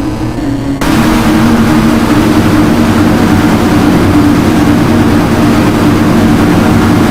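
Loud, steady electronic drone: a couple of held low tones under a thick noisy rush, which jumps louder and fills in about a second in.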